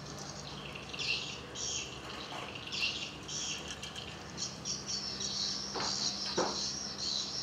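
Birds chirping and twittering in quick, irregular high calls over a faint steady low hum, with a couple of soft knocks about six seconds in.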